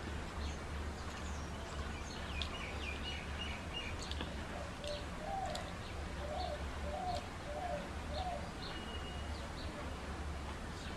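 Birds chirping in the background, with a run of about five short repeated calls near the middle, over a steady low hum. Faint clicks come from hands working rice and curry on steel plates.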